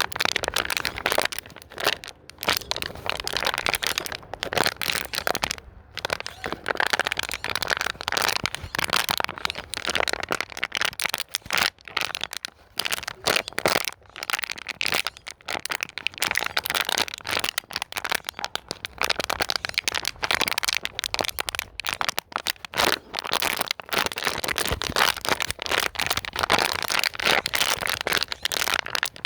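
Plastic bottle being squeezed and crumpled by hand: continuous dense crinkling and cracking with brief pauses, used as soothing noise for fussy or colicky babies.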